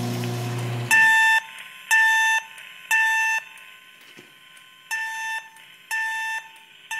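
Fire alarm voice-evacuation speaker strobe (Genesis speaker strobe on a Simplex 4100U panel) sounding the temporal-3 evacuation tone between recorded voice messages: two groups of three steady, identical beeps about half a second long, with the second group quieter than the first.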